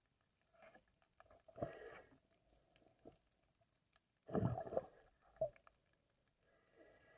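Muffled underwater knocks and scraping, heard through a submerged camera's housing: two short noisy bursts, the louder a bit past the middle, then a single sharp knock.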